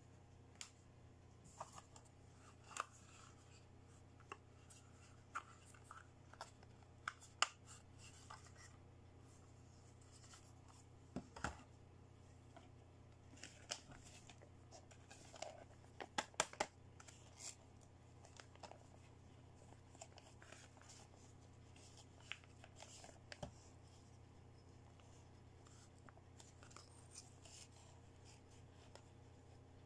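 Small hard plastic toy pieces being handled and set down on a tabletop: sparse, irregular light clicks and taps over a faint steady low hum.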